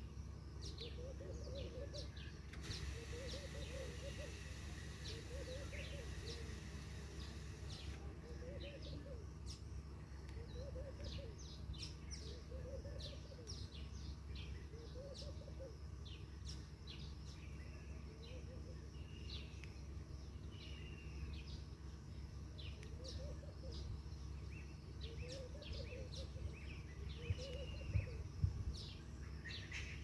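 Outdoor bird chorus: a low call repeating about every one and a half to two seconds, with many short high chirps from other birds over a steady low hum. A few soft knocks come near the end.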